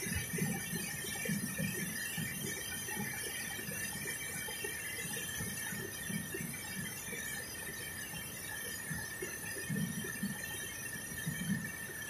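Waterfall and river cascade rushing steadily, with irregular low rumbles under the flow. A thin, steady high-pitched whine runs through it.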